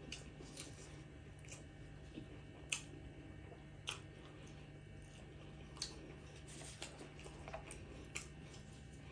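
Chewing a mouthful of fried chicken burger: faint, scattered crunches and mouth clicks, about seven over the stretch, the sharpest a little under three and four seconds in, over a low steady hum.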